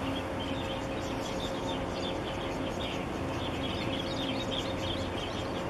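Small birds chirping in quick, irregular bursts over a steady mechanical hum and rushing noise.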